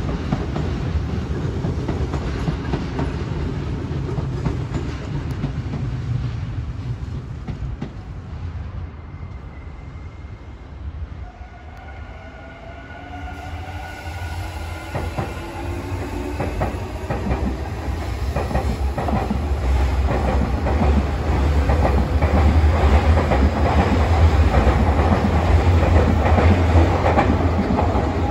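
Nankai electric trains on the tracks below: the running noise of one train fades away, then a rising whine comes in as another train approaches. It grows loud with wheel rumble and rail-joint clatter, loudest near the end.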